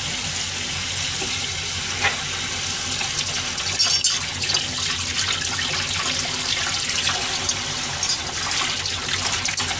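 Kitchen tap running steadily into a stainless steel sink while a metal utensil is rinsed under the stream, with a few light knocks, about two seconds in and again around four seconds.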